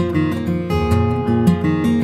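Acoustic guitar music: plucked notes in a steady, flowing pattern over sustained bass notes.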